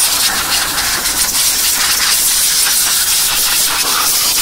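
Compressed-air blow gun hissing loudly and steadily as it blasts air over a diesel engine's injector area, blowing off spilled diesel and wash water.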